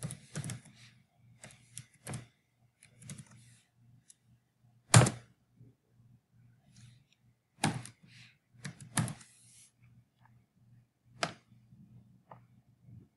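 Computer keyboard keystrokes: irregular, sharp clacks with pauses between them, the loudest about five seconds in.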